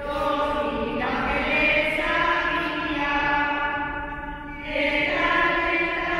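A group of women singing a slow song together, holding each note for about a second, with a short break for breath a little past halfway before the next phrase.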